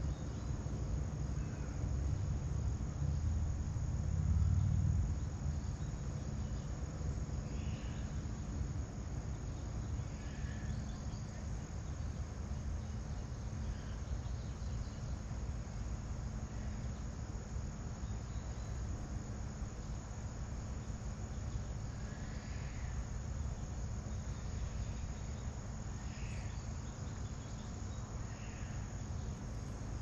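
Crickets trilling steadily, with a few faint short bird chirps scattered through. A low rumble swells over the first few seconds and fades about five seconds in.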